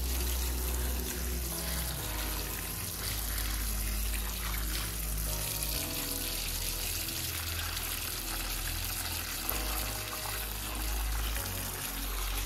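A steady stream of water splashing onto pumpkin leaves and flowers in a steel bowl as they are rinsed, with background music carrying a slow bass line underneath.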